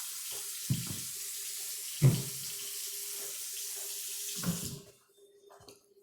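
Tap water running steadily into a sink, shut off abruptly near the end, with three dull knocks along the way.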